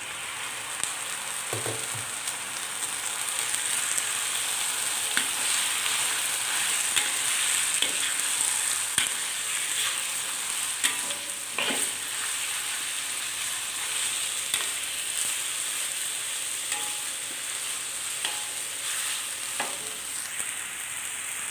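Raw chicken pieces sizzling in hot oil with ginger in a black wok, steadily frying, while a metal spatula turns them and scrapes and clicks against the pan now and then.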